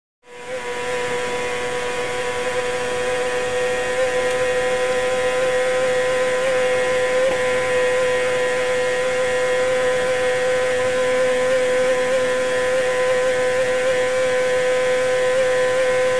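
Racing sidecar outfit's 600 cc four-stroke engine running flat out at a steady high pitch, close to the onboard microphone, with wind rush. It starts abruptly just after the beginning.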